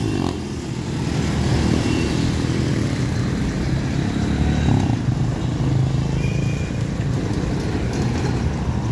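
Street traffic dominated by small motorcycles: several bikes and a few cars pass one after another, their engines running by in a steady drone with a swell about halfway through.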